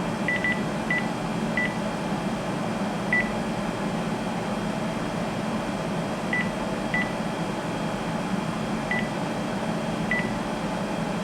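Cordless phone key-press beeps: about nine short, single-pitch beeps at irregular gaps as buttons on the handset or base are pressed to navigate the answering-machine greeting settings. A steady low hum runs underneath.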